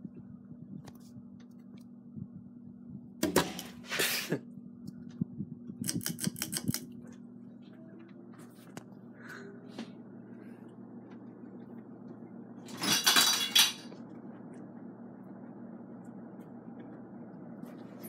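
Fasco Charleston 52-inch ceiling fan running, its motor giving a steady hum. Three short bursts of clicking and rattling break in, the loudest about two-thirds of the way through.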